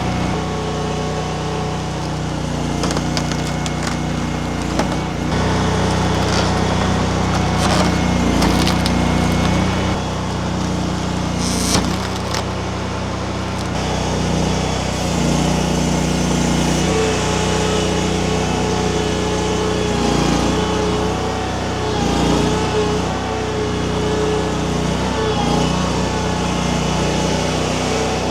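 Mini skid steer engine running steadily while its hydraulic wood splitter attachment forces through large pecan rounds, the wood cracking and splintering. The sharp cracks come in the first half, the loudest about twelve seconds in.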